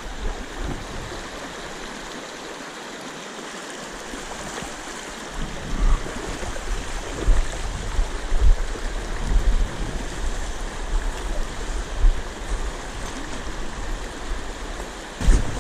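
Fast river current rushing over rocks close to the microphone, a steady wash of water noise. About five and a half seconds in it grows louder, with frequent low thumps of wind or water buffeting the microphone.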